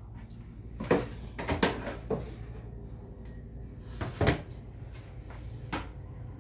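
A plastic basin handled and shifted in a stainless steel sink: a series of short knocks, the loudest about a second in and again about four seconds in, over a low steady hum.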